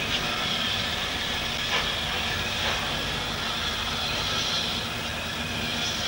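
Steady hiss of a steam locomotive standing with its train, with a low hum underneath.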